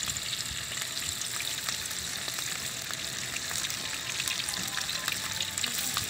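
Köfte (meatballs) frying in hot oil in a shallow pan over a wood fire: a steady sizzling hiss dotted with small pops and crackles.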